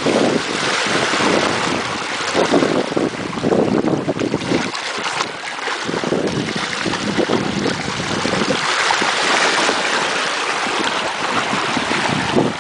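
Water rushing and splashing along the hull of a fast-moving sailboat, with wind buffeting the microphone.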